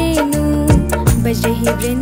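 Hindi devotional aarti song: a woman singing a wavering melodic line over a steady low drone and regular drum beats.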